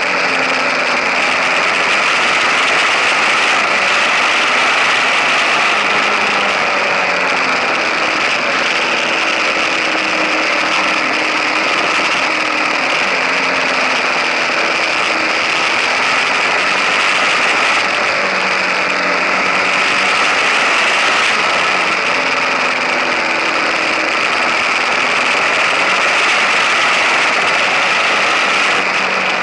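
KTM 1050 Adventure's V-twin engine running steadily under way, its pitch drifting slowly up and down with the revs, under constant wind and tyre noise from riding on the road.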